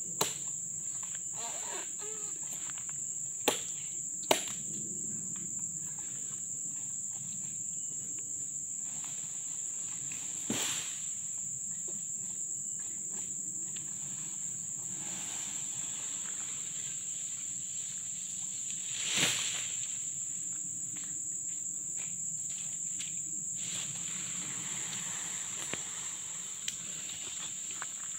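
Steady high-pitched drone of insects, with a few sharp knocks in the first seconds from a tool striking a freshly cut oil palm fruit bunch.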